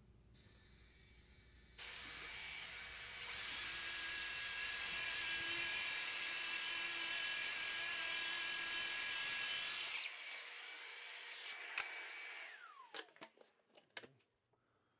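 Festool plunge track saw running along its aluminium guide rail, ripping a sheet of plywood, with its dust extractor hose connected. The saw starts about two seconds in, gets louder a moment later and runs steadily with a high whine until it stops about ten seconds in. A quieter extractor hum carries on briefly and winds down with a falling whine, followed by a few clicks and knocks.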